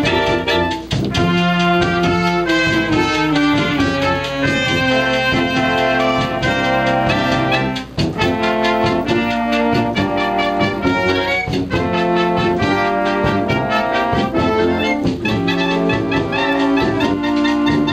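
A student brass band playing, with clarinets, tuba and other brass sounding together in a continuous piece.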